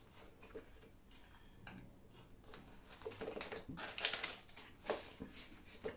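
Banknotes and the paper pages of a ring-bound budget binder rustling and tapping softly as notes are tucked into an envelope and a page is turned, mostly in the second half.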